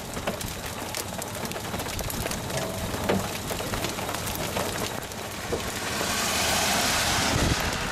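Rain and hail falling, heard as a steady patter with many small sharp taps of impacts. A louder rushing hiss swells about six seconds in and eases off near the end.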